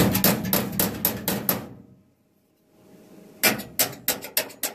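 A hammer striking sheet steel in a quick run of sharp, briefly ringing blows, about six a second, starting about three and a half seconds in. Before that comes a dense crackling clatter of metal clicks lasting about a second and a half, then a short pause.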